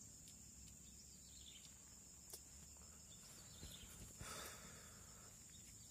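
Faint steady high-pitched chirring of insects, with a few soft clicks and a brief rustle about four seconds in.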